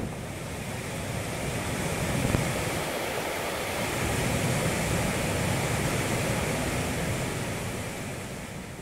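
Mountain stream in spate rushing down a steep rocky cascade: a steady hiss and rush of white water, easing off slightly near the end.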